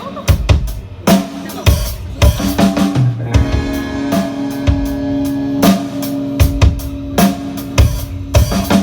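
Band music, the instrumental intro of a song: a drum kit with kick and snare hits over bass and guitar, no singing yet.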